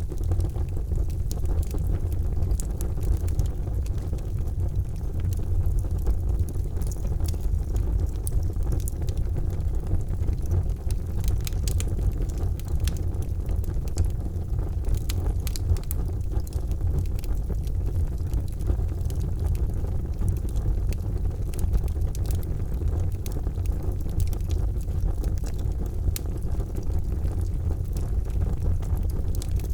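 Fire in a fireplace crackling, with scattered sharp pops and snaps over a steady low rumble.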